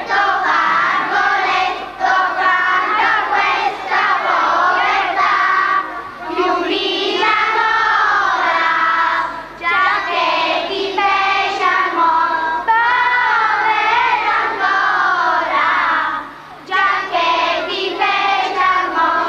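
A group of elementary-school children singing together in unison, in phrases with short pauses between lines.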